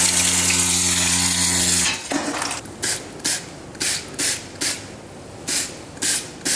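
High-pressure washer jet spraying water onto a drilled brake disc, with a steady pump hum, cutting off about two seconds in. It is followed by about nine quick hissing squirts from a trigger spray bottle of iron remover.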